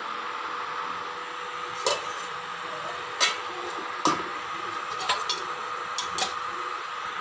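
Stainless-steel utensils clinking and knocking against each other several times, at irregular intervals, over the steady hum of an induction cooktop running.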